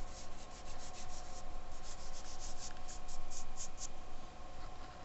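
A white soft pastel stick scraping over drawing paper in quick back-and-forth strokes, about five a second, laying in highlights. The strokes stop just before four seconds in.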